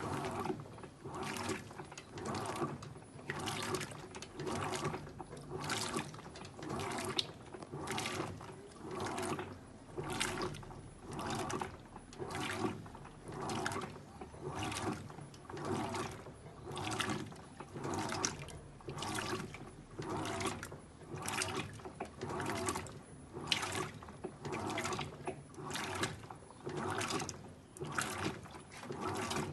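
Electrolux Acquajet 15 kg washing machine in its wash cycle. Water sloshes in regular surges about once a second as the agitator turns back and forth.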